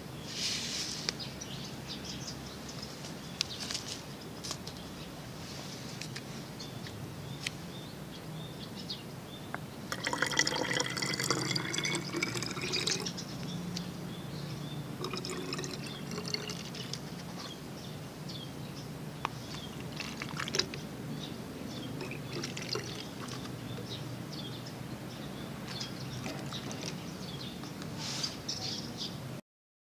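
Water poured into a small plastic container, the pitch rising as it fills, for about three seconds from about ten seconds in, with a shorter pour a few seconds later. Light clicks and rustles of plastic being handled come and go throughout.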